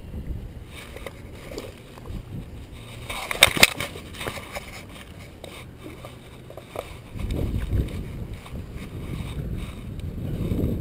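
Wind buffeting a body-worn camera's microphone, rising to a louder gusty rumble in the second half, with a brief cluster of sharp clicks about three and a half seconds in.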